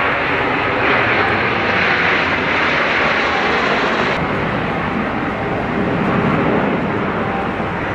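Kawasaki T-4 jet trainer flying past, with loud, steady jet-engine noise. About halfway through, the high hiss drops away and a deeper rumble is left as the jet goes by.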